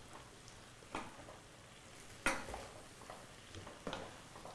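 A wooden spoon stirring vegetables in a frying pan, in a few short scrapes; the loudest comes a little over two seconds in.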